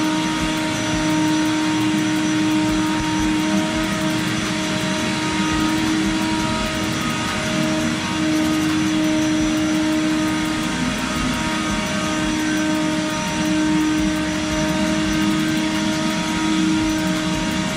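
Car-wash machinery running steadily: a constant motor whine over a rushing hiss.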